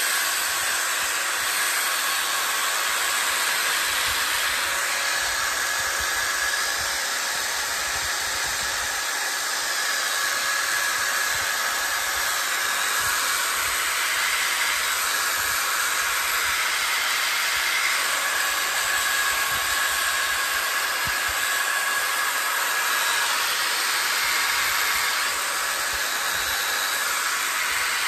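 Corded power drill spinning a sanding pad against a walnut and cherry bowl turning on a wood lathe: a steady motor whine over the hiss of abrasive on wood.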